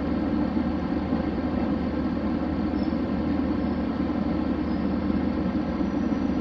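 Diesel railcar running along the line: a steady mix of engine hum and rolling noise, with no change in pace.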